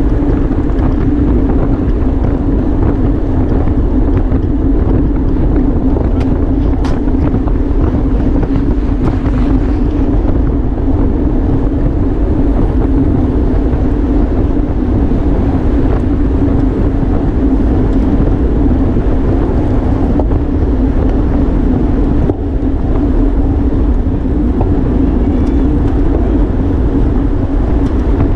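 Steady loud rush of wind on the microphone of a racing bicycle moving at speed, with a steady low hum beneath it.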